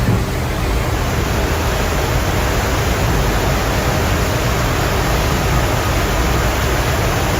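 Floodwater rushing: a steady, loud wash of churning water with no separate events in it.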